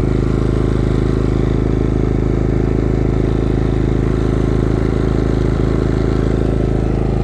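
Maxpeedingrods MXR 3500 inverter generator's four-stroke engine running steadily on its first start, an even, unchanging purr.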